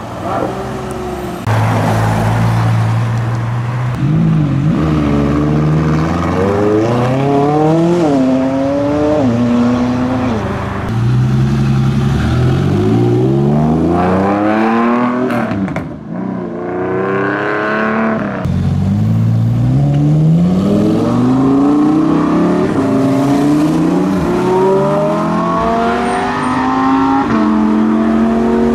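A string of performance cars, among them a TVR Cerbera, accelerating away one after another. Each engine note climbs in pitch and drops back at every upshift.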